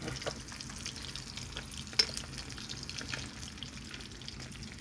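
Fish frying in hot oil in a small pan over a wood fire: a steady sizzle full of small crackles, with one sharp pop about two seconds in.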